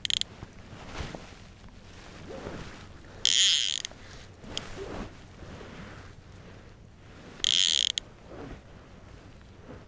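A fly reel's click-and-pawl ratchet buzzing as line is pulled off it: two pulls of about half a second each, a few seconds apart, with a shorter one at the start.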